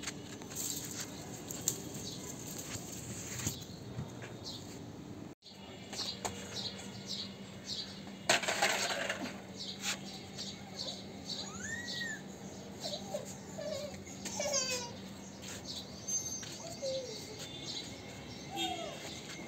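Outdoor ambience of small birds chirping repeatedly, with a few gliding calls and a faint steady hum. A brief rustling burst about eight seconds in is the loudest sound.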